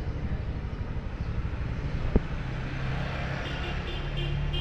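Street traffic with a vehicle engine running steadily, and a single sharp click about two seconds in.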